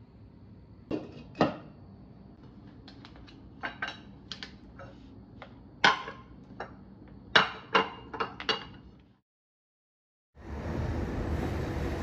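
A spatula and cooking utensils knocking and scraping against non-stick pans and a ceramic plate as food is served: a string of sharp clinks and knocks, two about a second in and a cluster from about four to nine seconds in. After a brief silence, a steady rushing noise starts near the end.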